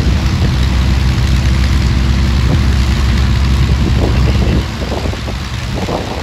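Avro Lancaster's Rolls-Royce Merlin V12 engines running on the ground during start-up, a loud steady deep drone. About four and a half seconds in the drone drops in level and wind noise on the microphone takes over more of the sound.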